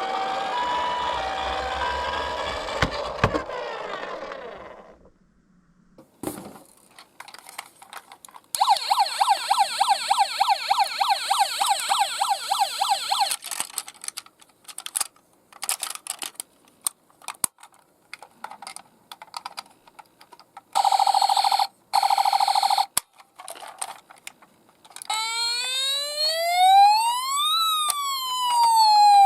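Ambulance siren sounds in turns: a fast yelping wail for about five seconds, a steady tone for two seconds, then a slow wail rising and falling. In between, toy ambulance minicars click and clatter as they run down a slope.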